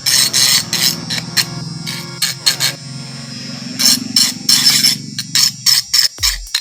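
Small DC motor of a homemade mini drill running with a steady hum, with repeated short scraping strokes over it; the hum stops near the end.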